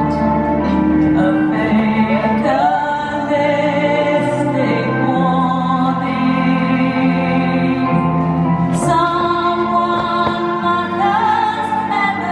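Background music: slow, sustained operatic-style female singing over held instrumental notes.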